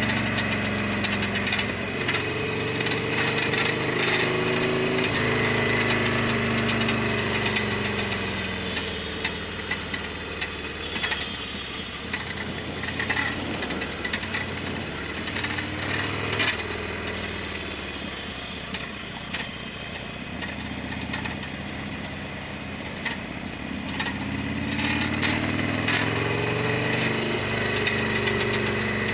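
Harley-Davidson Sportster XL1200R's air-cooled V-twin engine running on the move, its pitch rising and falling with changes of speed and dropping lower through the middle before picking up again near the end. Scattered sharp clicks and rattles sound over the engine.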